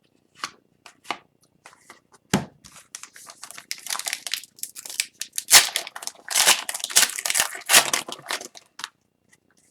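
A wrapper of an Upper Deck Series 2 hockey card pack being torn open and crinkled in the hands, after a few light handling taps; the tearing and crinkling is thickest and loudest in the second half.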